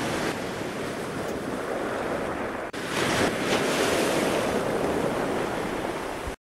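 Loud, steady rushing noise of wind and surf. It drops out for an instant partway through, comes back a little louder, and cuts off abruptly just before the end.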